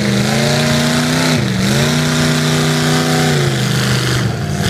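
Lifted pickup truck's engine revving hard as it pushes through deep mud and water, held at high revs with a brief dip about a second and a half in, then falling off near the end. Water and mud splash under the tyres.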